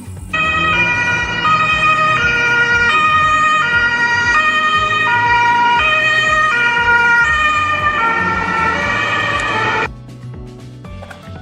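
Two-tone ambulance siren in the Japanese 'pee-po' pattern, alternating between a higher and a lower pitch about every two-thirds of a second. It starts suddenly just after the beginning and cuts off abruptly near the end.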